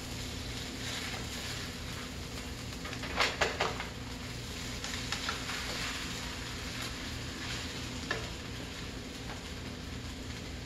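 Shrimp fried rice sizzling in a skillet as it is stirred and tossed with a spatula. A quick cluster of knocks of the spatula against the pan comes about three seconds in, and a single click near eight seconds.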